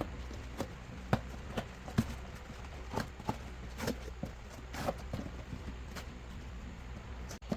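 Irregular light knocks and clicks, a dozen or more, over a steady low hum; the sound drops out briefly just before the end.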